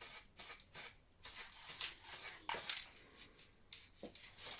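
Matte black paint being put on a small model part in a quick run of short, scratchy, hissing strokes, about two a second.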